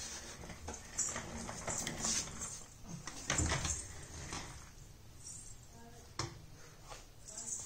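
Plastic baby walker rattling and knocking as it rolls and bumps about on a concrete floor, in irregular clatters with a few sharper knocks.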